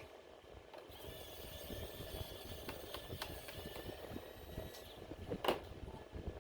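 Light clicks and taps of screws and the plastic case being handled as a laptop is taken apart, with a faint thin whine in the middle and one sharper click about five and a half seconds in.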